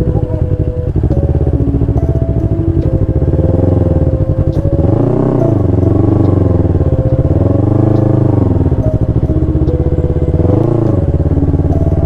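Motorcycle engine running, with the throttle opened and closed several times so that the pitch rises and falls, each swell lasting about a second.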